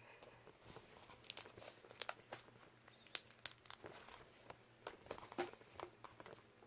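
Pink slime being kneaded and stretched by hand with lotion worked in, giving off irregular small clicks, crackles and pops as it squishes.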